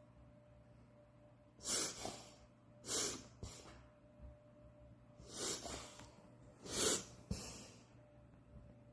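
Dog reverse sneezing: forceful, noisy breaths pulled sharply in through the nose, coming in four bouts, some of them doubled, from about two seconds in to near the end. This is a reverse-sneeze episode, a spasm set off by irritation of the nose, sinuses or back of the throat.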